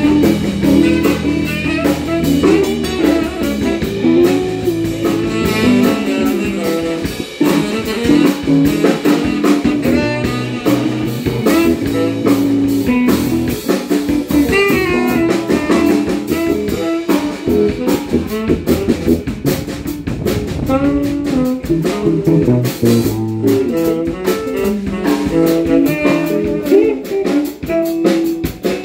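Live blues band playing without vocals: electric guitar and electric bass over a drum kit.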